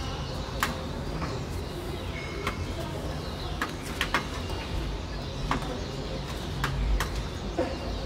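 Flock of common starlings whistling and chattering as they come in to roost, over a steady low rumble of city traffic. Sharp clicks, about a dozen, are scattered through it.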